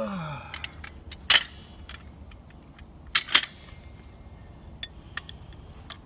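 Sharp clinks and knocks of objects being handled, with louder knocks about a second in and twice about three seconds in. A short vocal sound comes right at the start.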